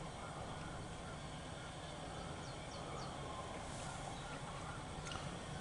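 Faint outdoor ambience: a steady low rumble, with a few short bird chirps about halfway through and again near the end.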